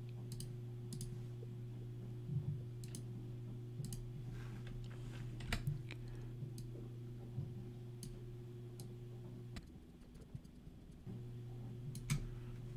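Computer mouse clicking at irregular intervals, about once a second, placing spline points, over a steady low hum that drops out briefly near the end.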